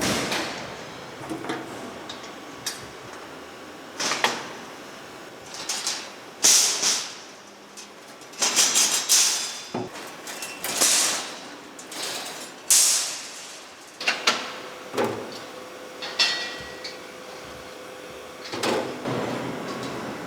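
Irregular knocks and clanks of sheet-metal work, with a dozen or so short hisses and scrapes and a faint steady machine hum underneath.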